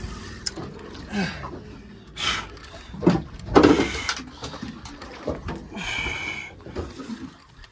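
An angler breathes hard and grunts with the strain of fighting a heavy fish on a bent rod and spinning reel. A few separate short breaths or grunts come over a low wind-and-water rumble, the loudest about halfway through.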